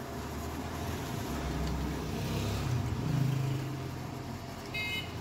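Bench drill press running, its twist bit drilling through the steel socket of a spearhead, the hum growing louder about three seconds in. A short high squeak near the end.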